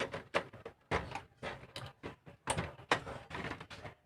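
Irregular clicks, knocks and scrapes from working on the plastic housing of an Epson L120 inkjet printer and its screws during reassembly.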